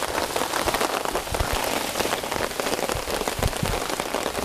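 Heavy rain falling steadily, a dense patter of drops heard from under a camping tarp, with a few dull low thuds about a second and a half and three and a half seconds in.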